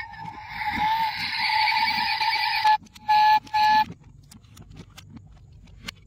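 Electronic car sound effect from a diecast model car: a steady whirring tone with hiss, then three short horn-like beeps about three seconds in. After that come light clicks as the model's doors are handled.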